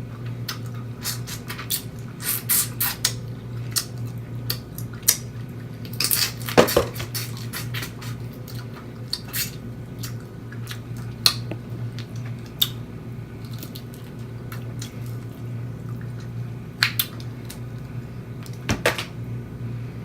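Snow crab legs being cracked and picked apart by hand, the shells giving irregular sharp clicks and cracks, loudest about six and a half seconds in and again near the end, over a steady low hum.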